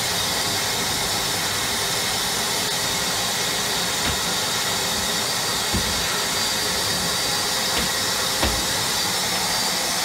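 Nilfisk 26-21 vacuum cleaner running steadily while hoovering, with a few low thumps as the nozzle is moved about.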